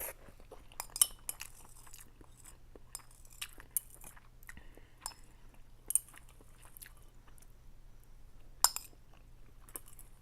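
A person chewing ramen noodles, with wet mouth clicks and a few sharper clinks of a utensil against the bowl.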